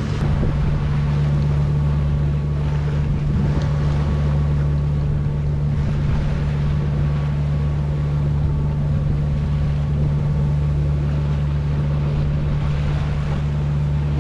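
A sailboat's inboard diesel engine running at a steady cruising speed, a constant low drone, with water rushing and splashing along the hull as the boat motor-sails.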